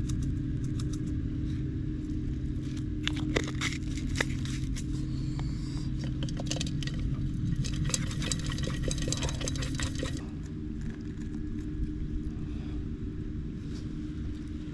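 A spoon clinking and scraping against a metal camp pot or bowl in quick clusters during a meal. Underneath, a steady low motor drone drops away about ten seconds in.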